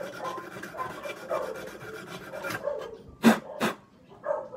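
Emery cloth rubbing in quick strokes on a rice cooker's switch contact points, cleaning them so the cooker switches to keep-warm again instead of burning the rice. The rubbing stops, and a little after three seconds in come two sharp, loud clicks, then a softer knock.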